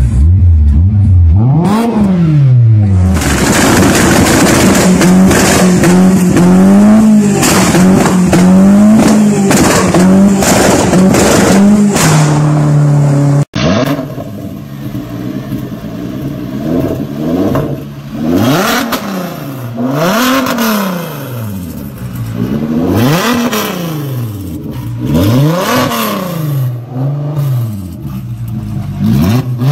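A small hatchback's engine revving through a modified exhaust: a low idle, one quick blip, then held at high revs for about ten seconds. After a cut, a VW Citi Golf's engine is blipped over and over, roughly one rev every two to three seconds, each rising and falling.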